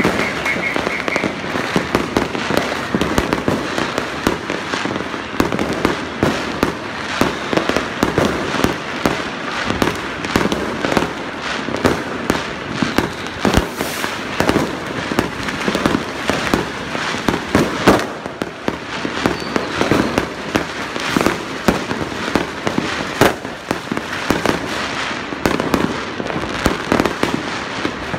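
Many fireworks going off without a break: a dense stream of crackling and bangs, with one sharp bang standing out about eighteen seconds in.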